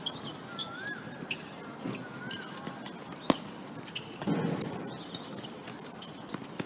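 Sounds of indoor korfball play: shoes squeaking on the court floor a couple of times, scattered light knocks, and one sharp ball impact about halfway through, with a brief shout from a player soon after.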